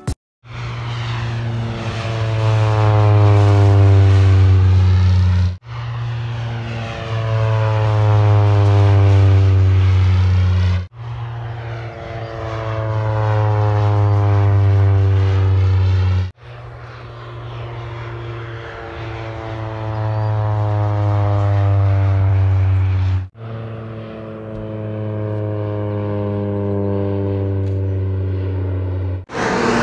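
Low-flying small propeller airplane passing close by five times in a row. Each time its engine and propeller drone swells and then drops in pitch as it goes past, and each pass ends in an abrupt cut.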